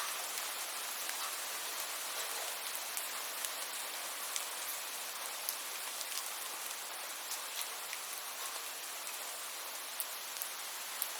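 Steady rain, an even hiss with scattered sharper drop ticks.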